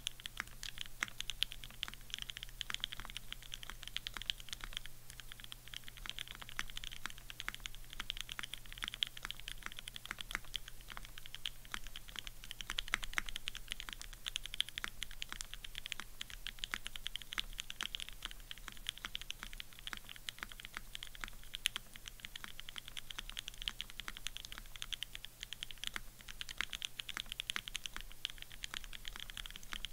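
Fast, continuous typing on a Keycult No. 2/65 custom 65% mechanical keyboard fitted with lubed and filmed H1 switches, lubed Durock stabilizers and GMK keycaps: an unbroken stream of keystroke clacks.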